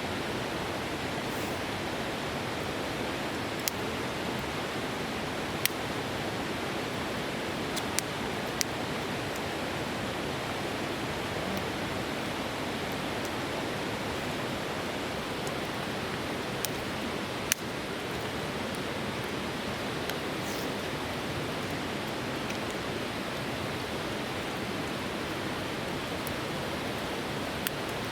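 Steady rushing of a river flowing close by, with a few short, sharp clicks scattered through it.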